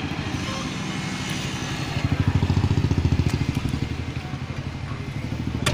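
A small motor vehicle's engine running close by with a fast, even pulse, louder from about two seconds in and easing off again. Near the end comes a single sharp knock of a cleaver striking the wooden chopping block.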